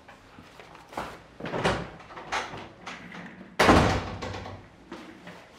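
A door shutting with a slam about three and a half seconds in, after a few lighter thuds.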